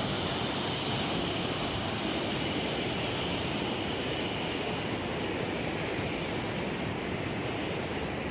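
Steady rush of white water in Tanner Creek near Wahclella Falls, an even hiss-like roar; its highest part fades about halfway through.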